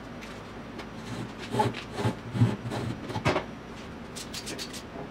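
Knocks and clatter of a ratchet strap and its hooks being handled and rigged, with a quick run of light clicks near the end.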